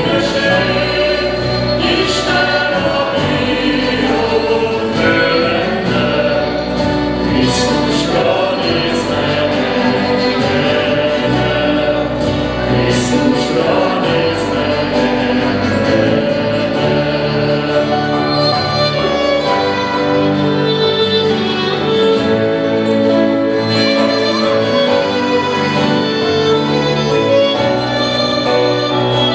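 Live worship band playing a Hungarian Christian song: voices singing over acoustic guitars, violin and keyboard, without a break.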